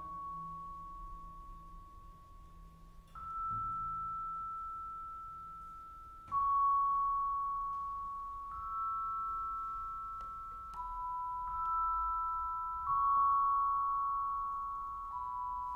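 Metal-bar mallet percussion played softly in a slow contemporary chamber piece: single high notes are struck every two to three seconds and ring on, overlapping two at a time. The first three seconds hold only the fading ring of a note struck just before.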